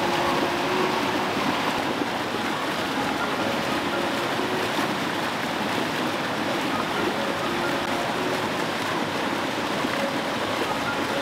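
Small woodland brook rushing and splashing over rocks and a log in a little cascade, a steady even rush of water.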